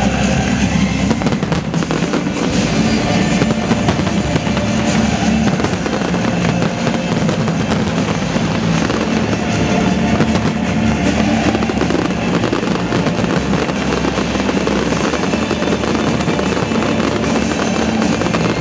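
Fireworks display: aerial shells bursting and crackling in quick succession, while fountain fireworks fire at ground level, with music playing underneath.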